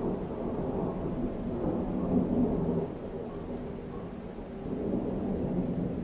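Thunder rumbling in a long, rolling peal that swells to its loudest about two seconds in, eases, then builds again near the end.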